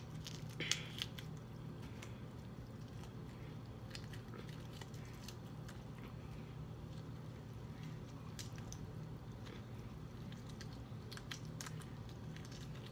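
Cooked lobster tail shell being pried and bent apart by hand, giving scattered small crackles and clicks as the meat sticks in the shell, over a steady low hum.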